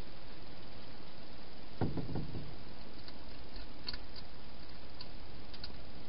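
A short cluster of dull knocks about two seconds in, from a hedgehog bumping its food bowls inside a clear plastic feeding box. A few faint sharp clicks follow later, over a steady hiss.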